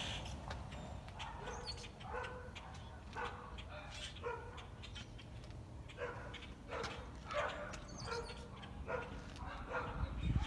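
A dog barking over and over, short barks about once a second, over a low steady hum.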